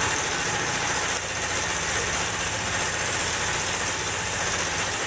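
Yamaha NMAX scooter's single-cylinder engine idling steadily with a very loud noise from the cam chain: the chain tensioner's spring has slipped and no longer holds the timing chain tight, a known fault of the first NMAX models.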